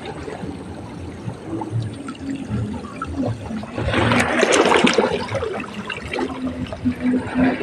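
Water sloshing and splashing, with a louder rush of water about four seconds in.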